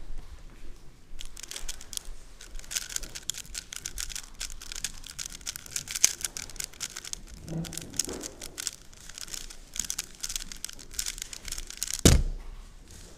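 A plastic 3x3 speedcube being turned fast during the blindfolded execution of a solve, a dense run of rapid clicking layer turns. About twelve seconds in there is a single loud slap as the hands come down on the Speed Stacks timer to stop it.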